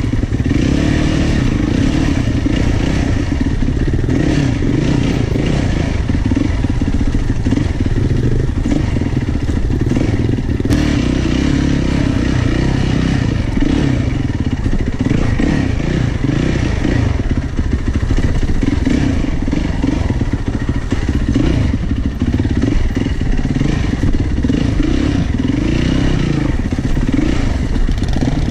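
2006 Yamaha YZ450F's single-cylinder four-stroke engine being ridden, its revs rising and falling over and over as the throttle is worked.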